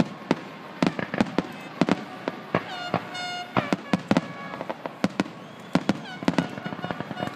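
Fireworks display: aerial shells bursting overhead in a rapid, irregular run of bangs.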